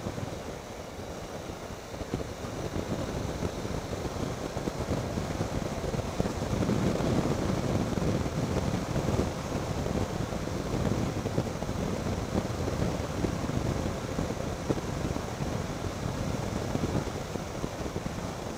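Triumph Tiger 800 XCx motorcycle riding along an unpaved road: a steady rush of wind on the microphone over engine and tyre rumble. It grows louder from about six seconds in and eases off near the end.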